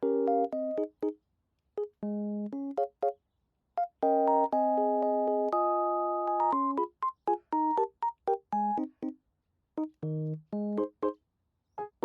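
Background music: a bouncy electric-piano tune of short, clipped notes and chords with small gaps between them, with a run of longer held chords in the middle.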